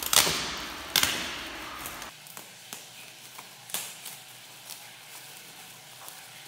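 Clear plastic wrapping around a camera bag crinkling and crackling as it is handled and pulled open. There are two loud crackles about a second apart at the start, then lighter scattered crinkles.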